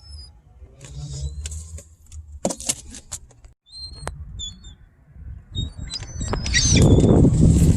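Short high bird chirps and a few sharp rattles, then about two-thirds of the way in a loud low rumble builds up.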